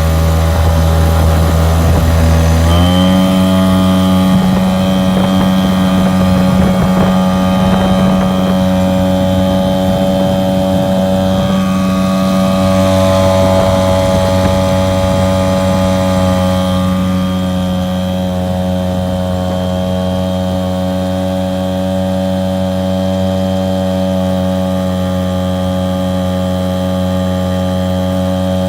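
Mariner 3.3 hp two-stroke outboard motor running with the boat under way. About three seconds in its pitch rises as the throttle is opened, and then it holds a steady note.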